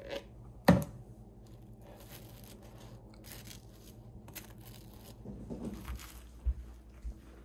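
A table knife scraping peanut butter from a plastic jar and spreading it over dry toast, with one sharp clack under a second in. Near the end the crunchy toast is bitten into.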